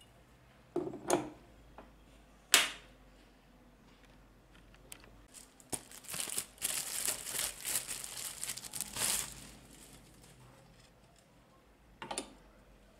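Packaging being handled: a few knocks, the sharpest about two and a half seconds in, then about four seconds of plastic wrap crinkling, and one last knock near the end.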